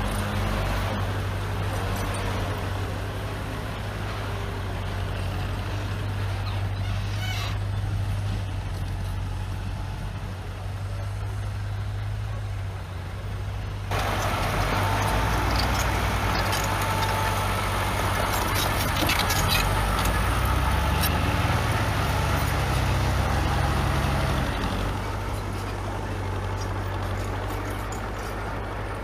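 Heavy diesel engines of earthmoving machinery, a bulldozer working with a dump truck, running with a steady low rumble. About halfway through the sound changes abruptly and gets louder, with brief squeals and a few metallic clanks.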